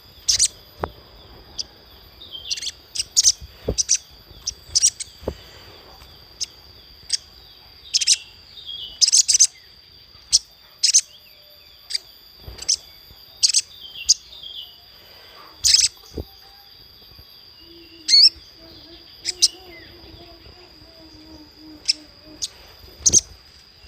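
Little spiderhunter (sogok ontong) calling: a run of short, sharp, high chip notes at irregular intervals, some paired or in quick clusters. Underneath runs a steady high insect-like whine.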